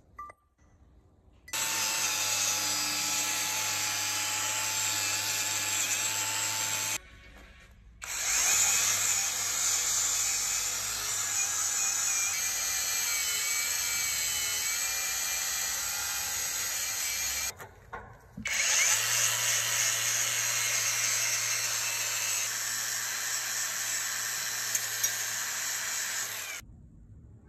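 Cordless angle grinder running against the face of a metal gearbox housing cover plate, grinding and cleaning it. It runs in three long stretches with a steady motor whine, and each stretch stops abruptly.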